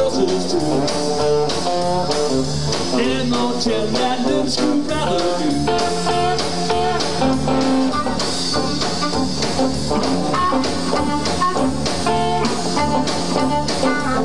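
Live blues band playing an instrumental passage: a single-cutaway electric guitar played over bass guitar and drums.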